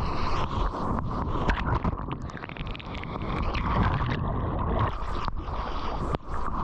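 Water rushing and splashing close to the microphone in the surf, with wind noise and a few abrupt breaks in the sound.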